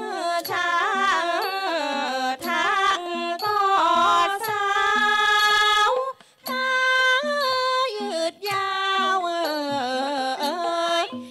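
Thai classical ensemble music: a gliding, heavily ornamented melody line with long held notes over a steady pattern of short repeated lower notes, with a brief break about six seconds in.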